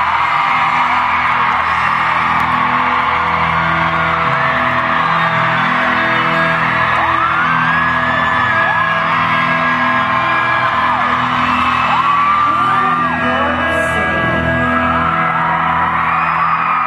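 Live pop concert music in an arena, recorded from the audience, with the crowd screaming and cheering loudly over it throughout.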